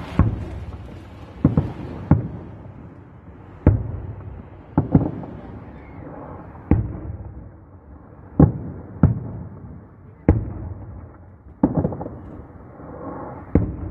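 Aerial firework shells bursting overhead: about a dozen sharp bangs at irregular intervals, one every second or so, each fading out in a short echo.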